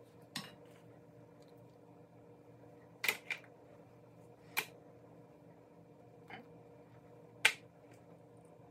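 Kitchen spoons tapping and clinking against a skillet and a plate: about six short sharp clicks, two in quick succession just after three seconds, the loudest near the end, over a faint steady hum.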